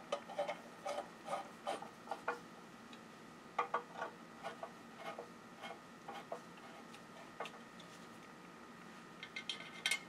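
Screwdriver turning the wheel-guard screws into a bench grinder's cast-iron housing: light clicks and scrapes of the tip in the screw heads, coming in short clusters with pauses between.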